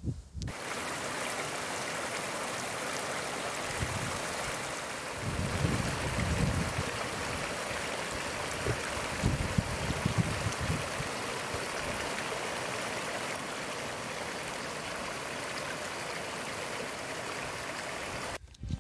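Small moorland stream running over stones, a steady rushing of water, with a few low rumbles in the middle. It cuts off suddenly near the end.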